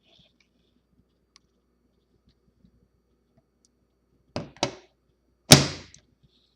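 Typewriter carrying case being handled: two quick knocks, then a louder sharp thump that rings out briefly, the hollow case being set down or its lid or latch knocking.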